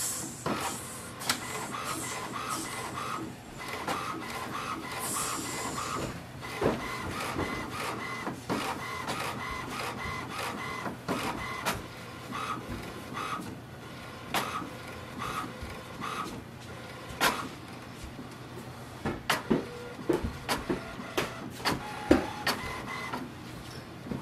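HP Envy 6155e inkjet printer printing its printhead alignment page: the print carriage shuttles back and forth in a run of short, repeated whirring whines, with clicks from the paper feed throughout. A cluster of sharper, louder clacks comes near the end.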